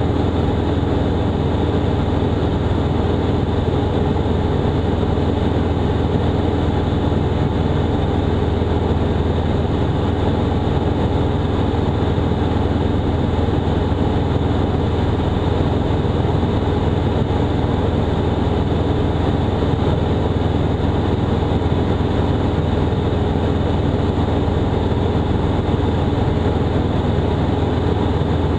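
Robin DR400 180's four-cylinder Lycoming engine and propeller running steadily in cruise flight, heard from inside the cabin as a loud, even drone.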